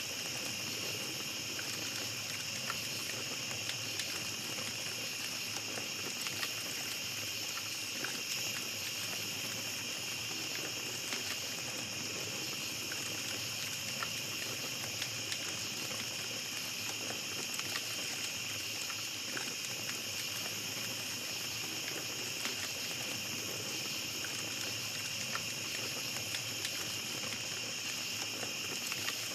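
Small campfire crackling, with frequent faint pops scattered throughout, over a steady high chirring of night insects.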